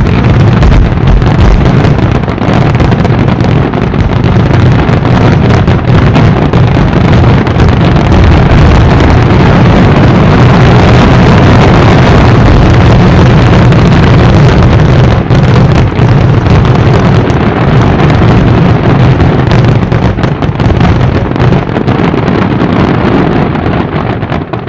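Fireworks finale: a dense barrage of shells bursting so fast that the reports merge into one continuous, very loud rumble with crackling on top. It stops abruptly near the end.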